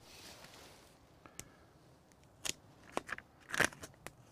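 Clear sticky polythene repair tape crackling as it is pulled off the roll and pressed onto the polytunnel's plastic sheet: a soft hiss in the first second, then a few short sharp crackles, the loudest about three and a half seconds in.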